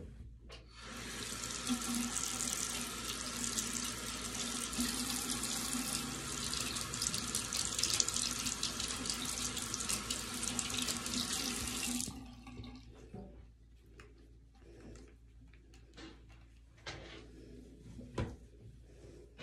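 Tap running into a sink for about eleven seconds, then turned off; a few small knocks and clicks follow.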